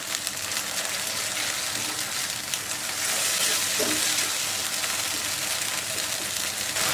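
Sliced chicken and chopped onion in red curry paste and tomato sauce sizzling as they fry in a pan; the sizzle gets louder about three seconds in.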